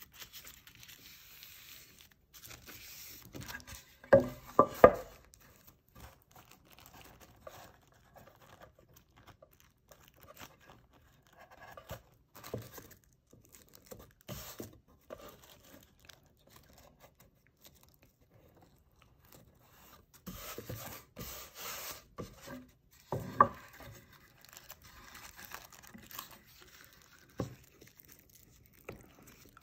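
Thin tissue paper rustling and crinkling as hands fold and press it around the edge of a wooden tray, in scattered soft bursts. A few sharp knocks cut through, loudest about four seconds in, and again near the end.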